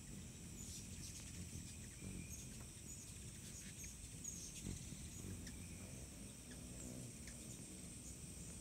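Steady high-pitched drone of summer insects, with scattered short high chirps over it and a faint low rumble underneath.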